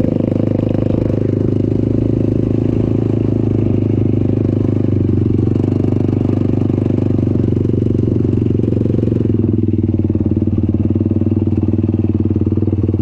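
Off-road vehicle's engine running steadily under way, close to the microphone, holding an even pitch throughout.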